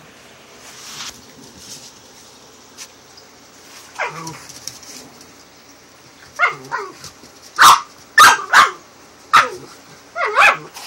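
Small terriers barking and yipping during rough play: a string of short, high-pitched barks, first one about four seconds in, then a quick run of them in the second half.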